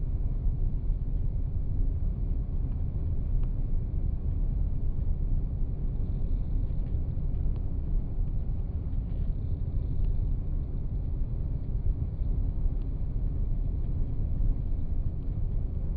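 Steady low rumble of a car driving at highway speed: tyre and road noise heard from inside the cabin.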